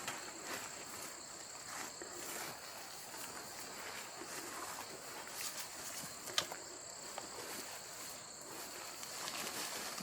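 Insects chirping in steady, high, continuous tones, with scattered faint rustles and one sharp click a little after six seconds in.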